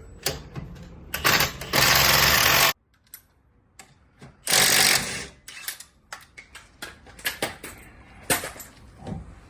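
Impact wrench loosening a car's rear-wheel lug nuts in two bursts, the first about two seconds in and cut off sharply, the second shorter at about four and a half seconds. Scattered light clicks and knocks come between them.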